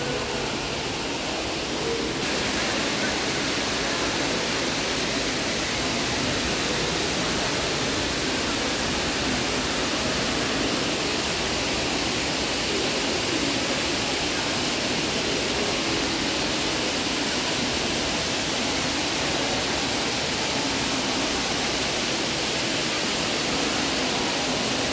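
Steady rush of falling water from an indoor fountain, with no breaks; it brightens about two seconds in.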